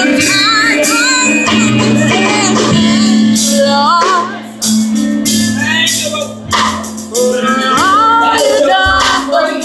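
Live gospel music in a church: a voice singing a bending melody over held keyboard chords, with drum and percussion hits.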